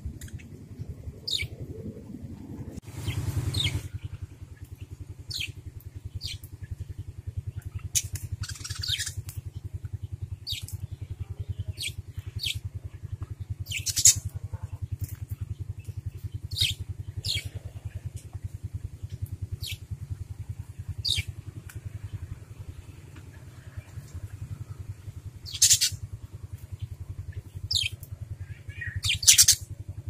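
Caged budgerigars giving short, sharp chirps that sweep downward, one every second or two, over a steady low mechanical drone.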